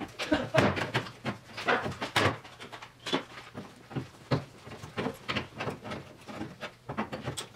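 Irregular metallic knocks and clicks, several a second, from hand tools working the freshly cut sheet steel of a Triumph TR6's rear wheel well. The loudest knocks come in the first couple of seconds.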